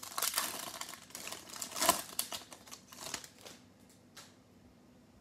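Foil wrapper of a 2020 Panini Select football card pack crinkling and tearing as it is pulled open by hand, loudest about two seconds in. The rustling stops after about three and a half seconds, with one last brief crackle a little later.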